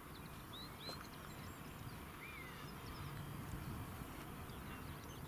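Quiet open-countryside ambience with faint, scattered bird calls: a few short high whistles and chirps, one longer slurred note about two seconds in.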